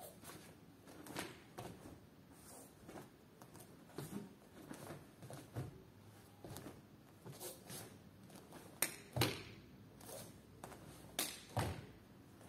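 Faint, scattered thuds and swishes of a taekwondo form: bare feet stepping and turning on foam mats and the uniform swishing with each technique. There are a few sharper snaps in pairs in the last third.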